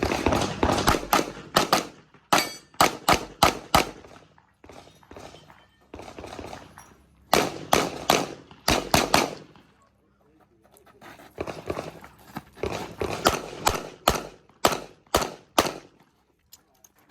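Handgun fired in quick strings of shots during a USPSA competition stage, several shots a second within each string, with pauses of a few seconds between strings.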